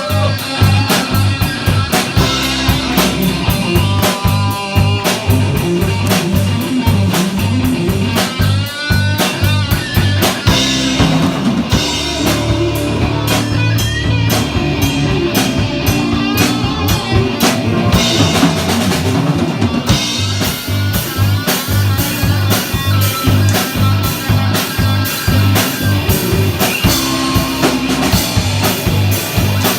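A rock band playing with drum kit and electric guitar, a steady beat running throughout, with an instrumental stretch of gliding lead lines.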